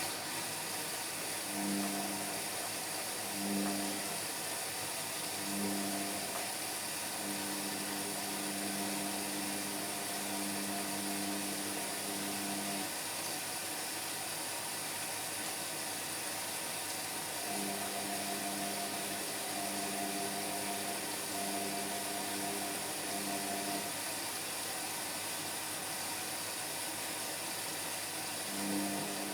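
Indesit MyTime washing machine running its wash on a Cotton 60 programme with a full load of towels. A steady hiss runs under a motor hum that comes in stretches of several seconds and stops in between, as the drum turns, rests and turns again.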